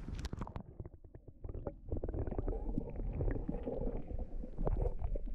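Muffled gurgling and sloshing of water heard through a camera microphone dipped under the surface, with many small knocks and clicks; the sound turns dull and muddy about half a second in as it goes under.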